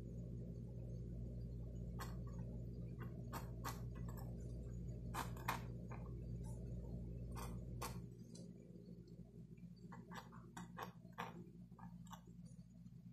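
Mechanical pencil sketching on paper: irregular short scratchy ticks as the lead strikes and drags across the sheet, over a steady low hum.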